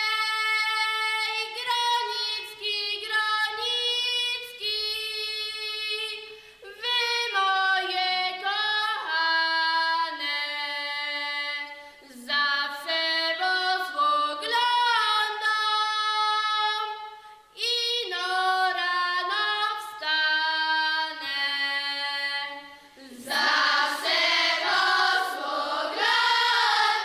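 Women's voices singing a melody together in phrases, with brief pauses between the phrases; the singing grows fuller near the end.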